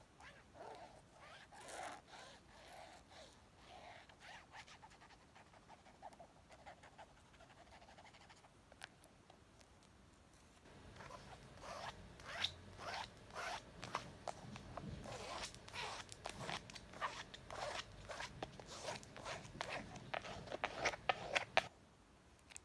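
Scratching and tapping on a book: soft, slow scratchy strokes at first, then from about halfway a faster, louder run of quick scratches and taps that stops shortly before the end.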